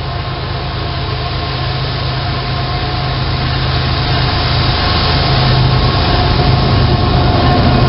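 CSX diesel freight locomotive approaching, its engine running with a steady low drone that grows steadily louder as the train draws near.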